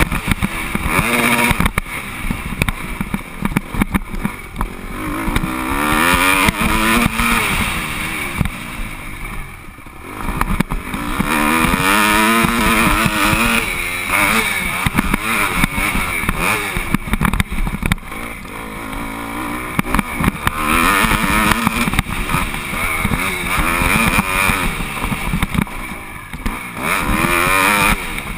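Dirt bike engine revving up and dropping back again and again as it is ridden over a dirt track, its pitch climbing through each gear and falling at each change or let-off.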